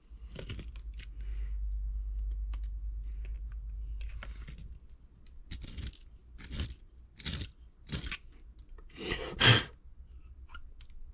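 Wire strippers scraping the burr off the inside edge of a freshly cut copper pipe: a low rumble for the first few seconds, then about six short, separate scrapes, the loudest and longest near the end.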